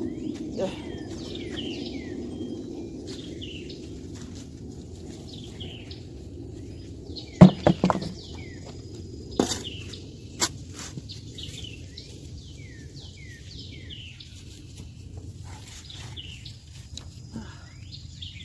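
Songbirds chirping over and over in short falling notes. A few sharp knocks from digging in the garden soil, the loudest a quick cluster about halfway through, with two smaller ones soon after.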